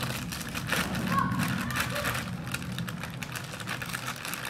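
Plastic Maggi instant-noodle packet crinkling as it is cut open and handled, a dense crackle over a steady low hum.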